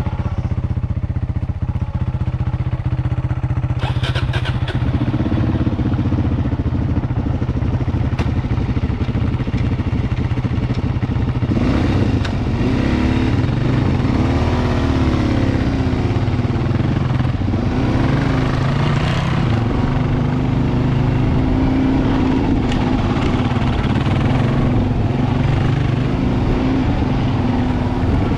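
Dual-sport motorcycle engine running, steady at first. From about twelve seconds in, the revs repeatedly rise and fall as the throttle is worked, with occasional clatter.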